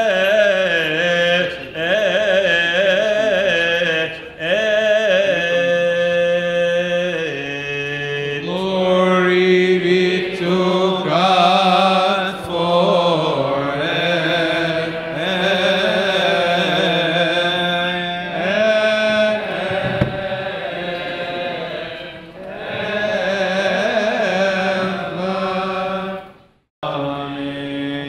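Men's voices chanting a Coptic Orthodox liturgical hymn in long, ornamented melismatic lines over a steady lower held note. The chant breaks off briefly near the end.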